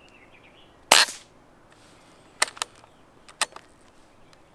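Walther Rotex RM8 .177 PCP air rifle firing one shot about a second in: a single sharp report with a short ring. A few light metallic clicks follow over the next couple of seconds as the bolt is worked to chamber the next pellet from the magazine.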